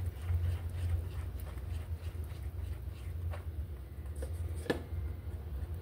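Wire whisk stirring thin batter in a glass bowl, with light irregular taps and scrapes against the glass and one sharper clink near the end, over a steady low hum.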